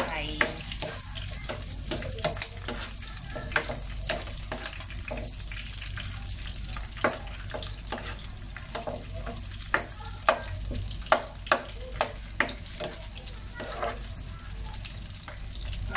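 Chopped red onions sizzling in hot oil in a nonstick frying pan while a wooden spatula stirs them and scrapes the pan. Frequent sharp pops come from the oil spitting.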